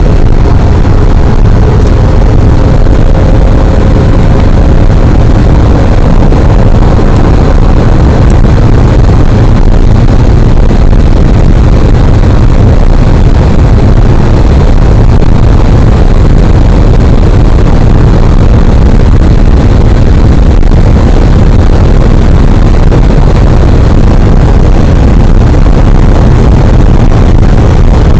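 Inside the cabin of a BMW 530i E39 touring at high speed, its straight-six engine pulling at close to 5,000 rpm under a steady loud roar of wind and tyres. The smartphone recording is overloaded and distorted.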